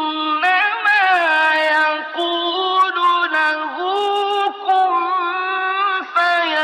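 A male Quran reciter chanting in the melodic mujawwad style, his voice high and held on long, ornamented notes that bend up and down, with short breaths between phrases.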